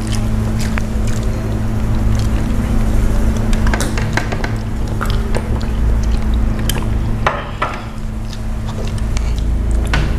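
Close-up eating sounds: chewing, lip smacks and sticky finger clicks as grilled chicken and rice are eaten by hand, over a steady low hum.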